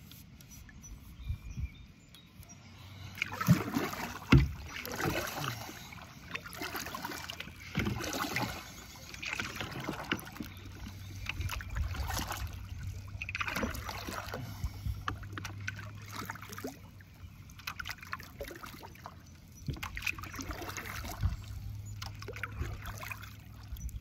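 Kayak paddle strokes: the blades swish and splash through the water in turn every second or two, with a couple of sharp knocks about three to four seconds in. A low steady hum comes and goes in the second half.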